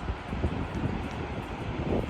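Wind buffeting the microphone: an uneven low rumble with a steady hiss behind it.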